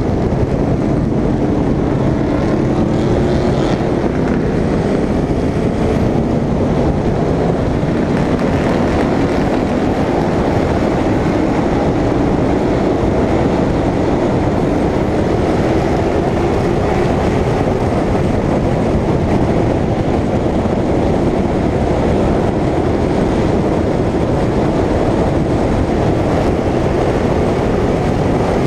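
Short-track stock car engine running hard at racing speed, its pitch rising and falling slowly, under a steady rush of noise.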